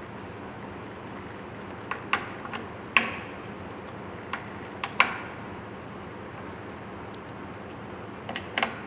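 Screwdriver and bolt clicks and taps as the blade-fixing bolts of a ceiling fan's motor are re-tightened: a few scattered clicks, two louder single clicks about three and five seconds in, and a quick cluster near the end.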